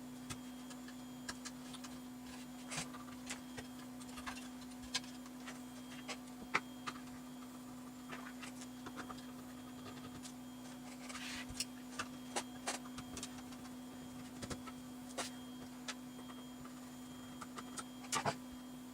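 Scattered small clicks and taps of hands and tools working on the open power supply's parts, over a steady low hum.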